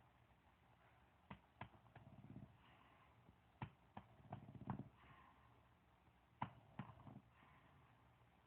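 A sleeping pet snoring faintly, three low rumbling breaths a couple of seconds apart, with a few sharp clicks or taps in between.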